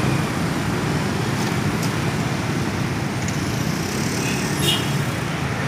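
Steady street traffic: cars and motor scooters running as they cross over railway tracks, with a brief sharp clack about four and a half seconds in.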